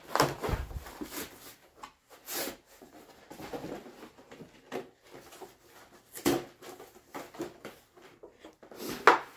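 Cardboard backing card and clear plastic packaging being handled: scattered rustles and knocks, with louder knocks near the start, about six seconds in and near the end, and a dull thump in the first second.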